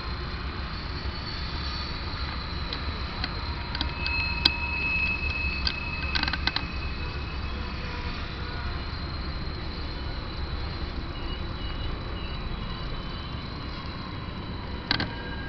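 Steady low rumble of distant engines, with a few sharp clicks about four to seven seconds in and again near the end.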